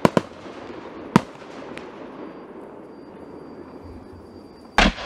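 Fireworks bursting overhead: three sharp bangs in the first second or so and a fainter one after, then a hiss that fades away, and a deeper, heavier boom near the end.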